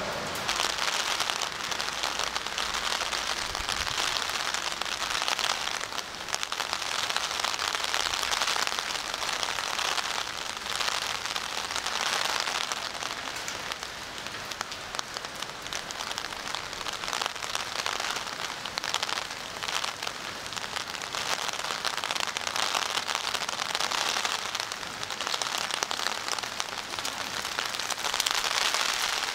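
Steady rain falling on wet pavement: a dense hiss that swells and eases every few seconds.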